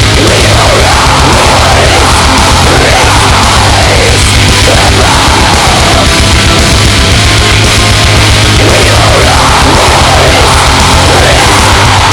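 Loud heavy metal music with fast, driving drums and a wailing lead line over them.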